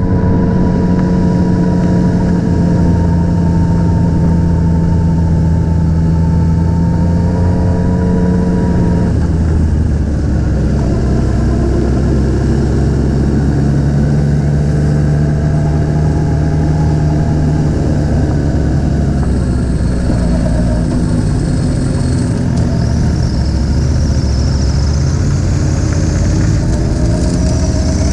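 Motorcycle engine running steadily at low road speed. Its pitch changes about nine seconds in and climbs near the end as it speeds up.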